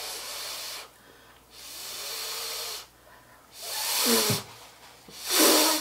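Instant ramen noodles being slurped up, four long hissing slurps, the last two ending in a short hum.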